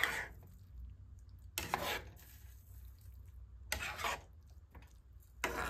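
Utensil stirring ramen noodles and sauce in a pan, short scraping strokes about every two seconds.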